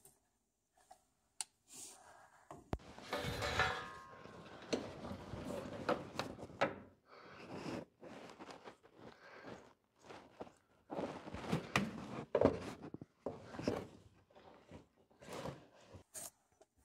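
Handling and movement noise from someone working under a truck: irregular rustling, scraping and knocking, with a few sharp clicks early on.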